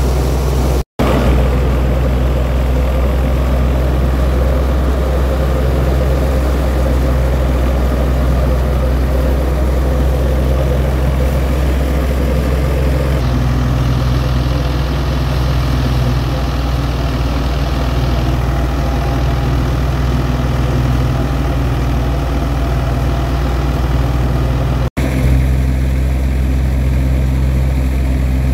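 Wheat threshing machine and the engine driving it running steadily: a loud, continuous low drone with a busy mechanical rattle above it. It is broken by two split-second silent gaps, one about a second in and one near the end.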